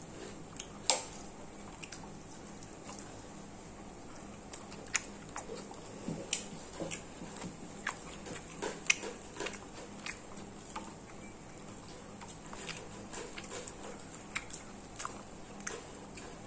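Someone eating a meal: chewing and biting, with about a dozen scattered sharp clicks and clinks over a low steady background.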